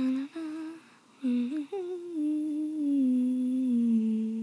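A girl humming a tune: a few short notes, then one long note that slowly falls in pitch.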